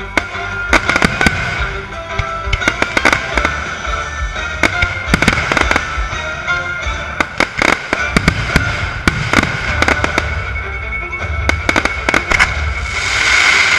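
Fireworks display: rapid, irregular bangs and crackles over music, with a rising hiss swelling near the end.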